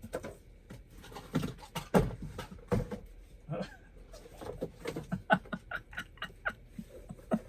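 Items being rummaged through and knocked about in a cardboard shipping box: irregular clicks and knocks, a few sharper ones in the first three seconds, then quicker, lighter ones.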